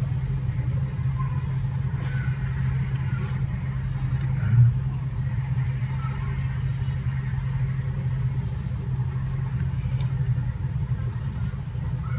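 Steady low hum, with faint scratching of a graphite pencil shading on paper and one brief low bump about four and a half seconds in.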